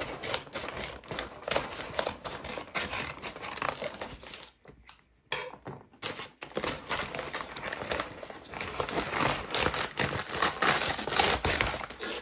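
Brown paper mailer crinkling and crumpling as it is cut open with scissors and pulled apart by hand, with a brief pause about halfway through.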